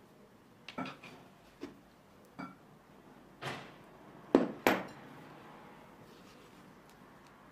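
Silicone spatula working thick chocolate batter in a ceramic bowl, with a few soft knocks against the bowl. Flour is then tipped in with a short swish, followed by two sharp ceramic clinks about four and a half seconds in, the loudest sounds.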